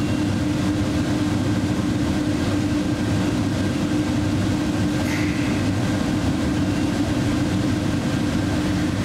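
Airport terminal shuttle train running, heard from inside the car: steady running noise with a constant low hum.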